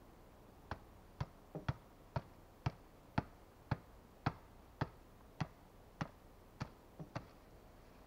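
Small axe chopping into a wooden log: sharp strikes at a steady pace of about two a second, a couple of them doubled, stopping near the end.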